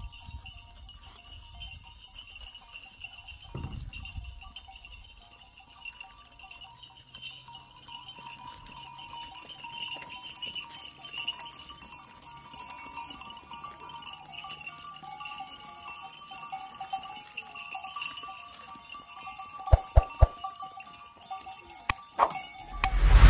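Herd of sheep and goats bleating, with livestock bells clinking. There are a few sharp knocks near the end, then a loud thump.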